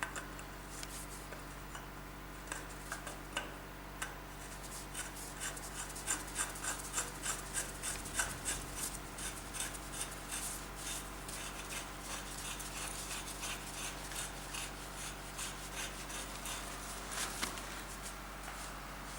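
Hand work on a homemade rifle grenade's metal parts: a quick run of small clicks and scrapes, several a second and thickest in the middle, over a steady electrical hum.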